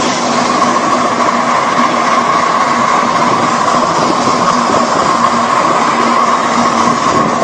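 Ride-on live steam miniature train rolling along the track, heard from a riding car: a steady running noise with a constant high ringing tone.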